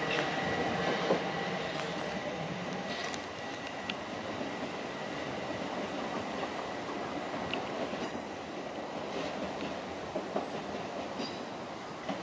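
Southeastern Class 377 Electrostar electric multiple unit running away from the platform, its wheel-on-rail noise fading as it recedes. A thin steady whine dies away in the first few seconds, and a few faint clicks come from the wheels over the rail joints.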